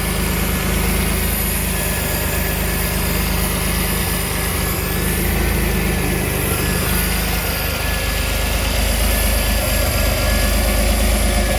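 1988 Pontiac Fiero Formula's 2.8L V6 idling steadily, with a constant hiss over the engine hum, which the owner takes for a vacuum leak under or around the throttle body.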